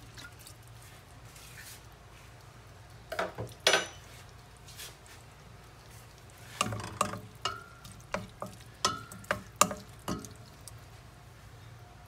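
A utensil stirring food in a stainless steel pot, with a pair of knocks against the metal a few seconds in and then a run of about a dozen sharp clinks and scrapes, some ringing briefly. A low steady hum sits underneath.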